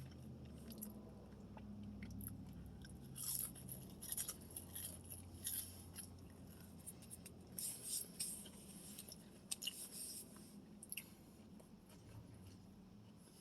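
A person chewing crunchy fried chicken sandwich close to the microphone, with crisp crunches coming in irregular clusters for several seconds, then easing off near the end.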